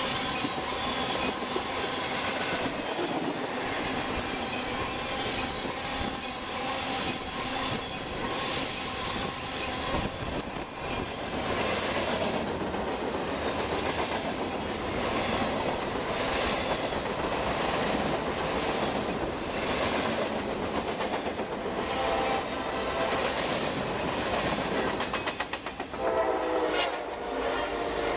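Freight cars of a long train rolling past close by, steel wheels clicking over the rail joints above a steady rumble. A high ringing squeal from the wheels comes in near the end.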